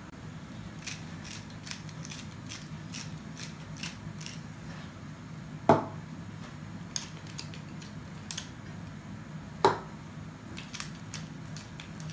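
Hand-turned spice mill grinding: a run of quick, dry clicks as the mill is twisted, with two louder knocks about six and ten seconds in.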